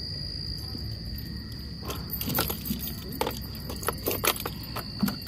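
Clicks, knocks and rustling of a handheld phone rubbing against clothing, starting about two seconds in, over a steady high-pitched whine and a low rumble.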